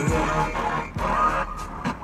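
Music playing on a car radio, with a heavy deep bass and a brief break just before one second in.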